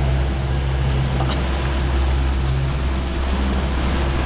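Tour boat's engine running steadily with a low hum, over a haze of water and wind noise.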